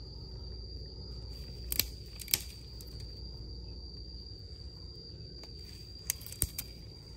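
Steady high-pitched insect drone under a low outdoor rumble, with a few sharp snaps as dry twigs are broken by hand: two close together about two seconds in and two more near the end.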